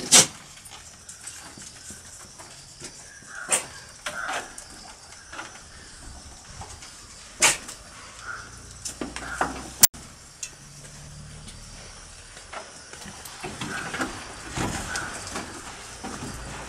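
Billy goat making a series of short, odd sounds at nanny goats, with sharp loud ones about the start and again near 4 and 8 seconds in.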